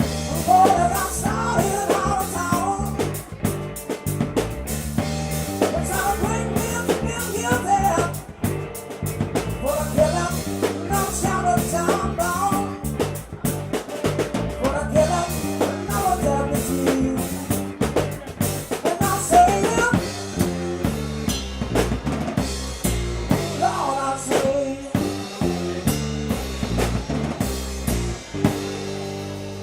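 Band music: drum kit and bass under a melodic lead line that comes in short phrases every few seconds, with the lead dropping out near the end.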